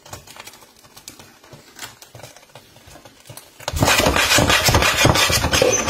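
Bacon, onions and chopped water chestnuts sizzling faintly in a hot frying pan. About two-thirds of the way in, the pan is shaken and tossed on the hob, giving a loud, continuous rattle and scrape of food and metal pan that lasts about two seconds.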